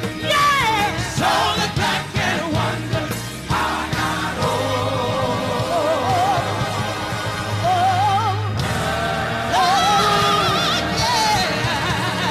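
Gospel singing: women's voices holding long notes with wide vibrato over steady instrumental accompaniment.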